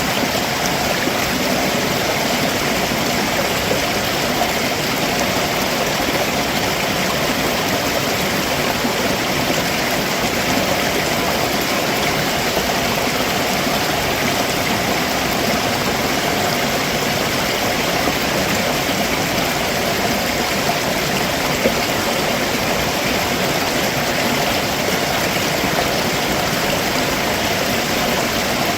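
Stream water running over rocks below a waterfall: a steady, even rushing.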